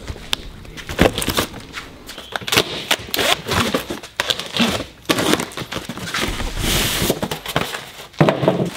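A cardboard box being unpacked by hand: plastic packing straps pulled off and cardboard flaps pulled open, as a run of irregular scrapes, knocks and crackles. A denser crinkling of the plastic wrapping comes shortly before the end.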